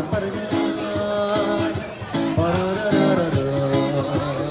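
Live acoustic music: guitar playing with a voice singing a melodic line.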